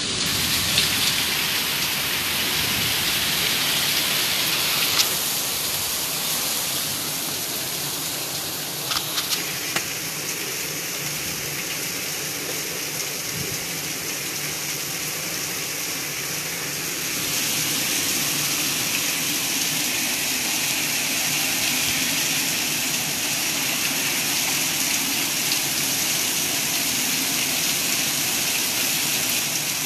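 Heavy rain pouring down, a steady rushing hiss that gets a little louder past the middle, with a few sharp clicks about five and nine seconds in.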